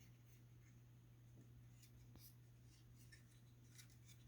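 Near silence: a steady low hum with a few faint ticks.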